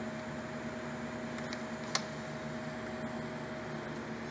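Metkon Forcipol 1V grinder-polisher with its Forcimat specimen mover running, a steady electric motor hum. A single faint click comes about two seconds in.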